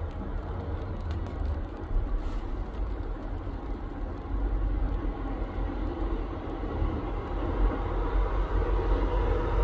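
Road traffic: a steady low rumble of passing cars' engines and tyres, growing louder toward the end as a car approaches.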